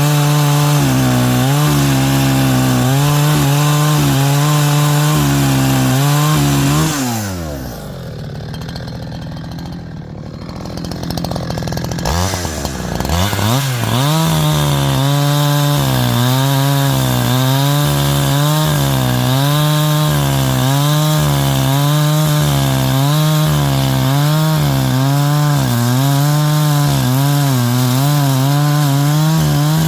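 70cc two-stroke chainsaw with a 25-inch bar cutting through a stringybark log, its engine note wavering as it works under load. About seven seconds in, the throttle is let off and the engine falls to a quieter, slower running for several seconds, then it revs back up and carries on cutting.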